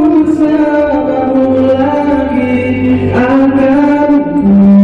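A man singing a slow melody into a microphone, holding long notes and gliding between them, with a louder low note held near the end.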